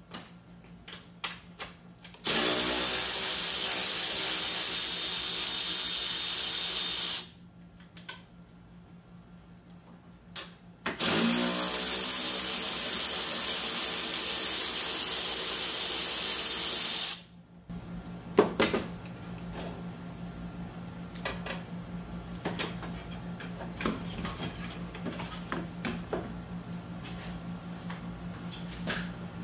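Cordless ratchet running in two steady runs of about five and six seconds, backing out bolts. After it, scattered sharp clicks of tool and part handling.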